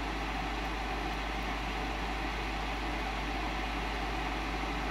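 Small bench fume extractor's fan running, a steady, even whoosh of moving air.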